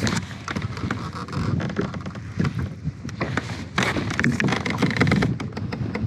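Wind gusting on the microphone and water lapping against a plastic kayak hull, with irregular small knocks throughout and a stronger gust of noise about four seconds in.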